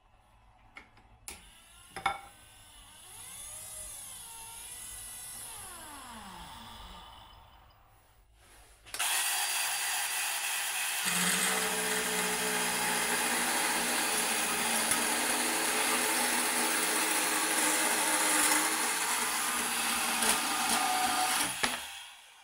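Portable band saw running and cutting through a steel square tube clamped in the vise, loud and steady for about thirteen seconds before stopping just before the end. Before it, a faint motor whine rises and falls in pitch as the wiper motor drives the vise jaws.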